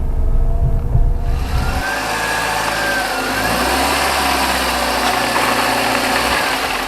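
Car engine running, with a heavy deep rumble for the first couple of seconds that then gives way to a steadier, lighter running sound.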